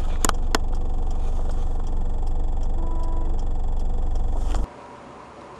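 A car's engine idling, heard from inside the cabin as a steady low rumble, with two sharp clicks about a quarter and half a second in. Near the end it cuts abruptly to a much quieter hiss.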